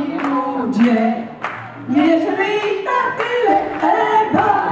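A small group of women singing a song unaccompanied into a microphone, the tune moving in short held notes, with sharp hand claps keeping time.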